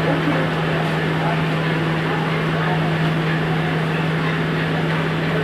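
Steady drone of a ship's machinery: a constant low hum under a dense rushing noise, with indistinct crowd voices mixed in.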